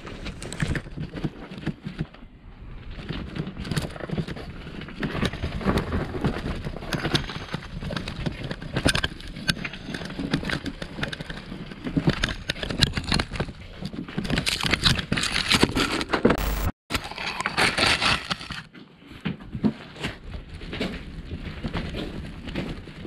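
Wheelbarrow loaded with snow being pushed over frozen, icy ground: a steady crunching and rattling of the wheel and frame, broken off for a moment about three quarters of the way through.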